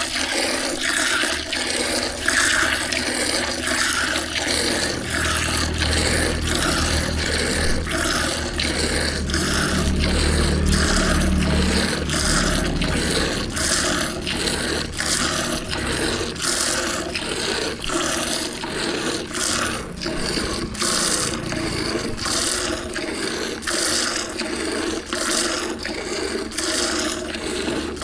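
Buffalo being hand-milked: streams of milk squirting into a pail in a steady rhythm, about two squirts a second. A low hum joins for several seconds in the middle.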